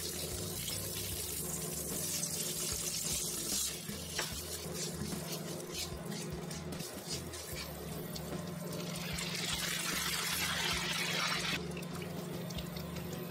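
Butter and sugar sizzling in a hot nonstick frying pan while being stirred into caramel sauce. The hiss is strongest at the start and again from about nine seconds in, for a couple of seconds.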